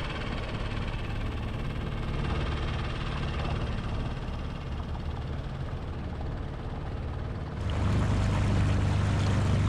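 Boat engine running steadily. About three-quarters of the way through, the sound jumps to a louder, deeper steady hum.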